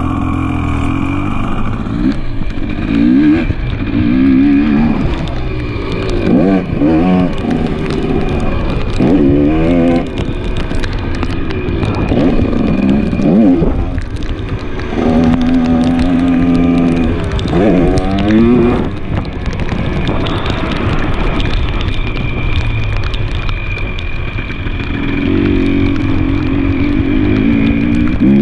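2023 KTM 300 XC's single-cylinder two-stroke engine being ridden hard, revving up and falling back again and again through the gears, with one longer held pull midway.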